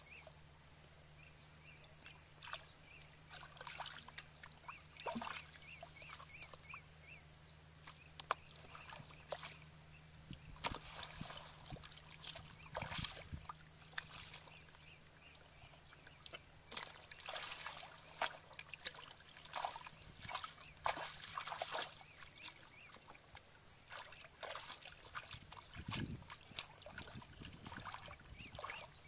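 Hands groping for fish in shallow muddy water, with irregular small splashes and sloshes.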